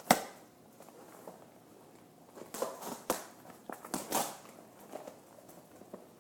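Handling a large shipping package while opening it: a sharp knock at the start, then a few seconds later a run of short rustles, crinkles and taps.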